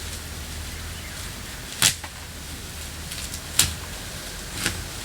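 A garden hand tool working the ground or plants: three sharp strikes at uneven intervals of a second or two, over a steady low background rumble.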